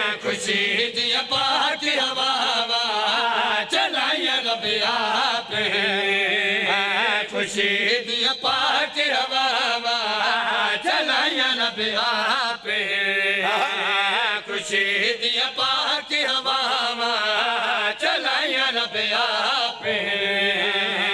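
Men chanting a Punjabi devotional qaseeda together, amplified through microphones, their voices rising and falling over a steady held low tone, with frequent short sharp clicks through it.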